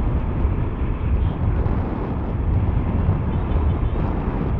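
Yamaha Aerox 155 scooter cruising: a steady rush of wind on the handlebar-mounted camera's microphone, heaviest in the low end, with the scooter's running and road noise underneath.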